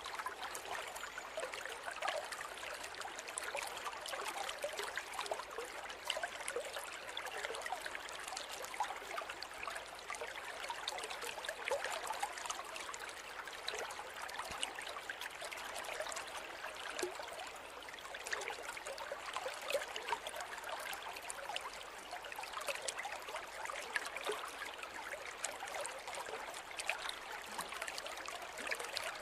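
A small river or stream flowing over stones, a steady babble of splashes and trickles without deep rumble.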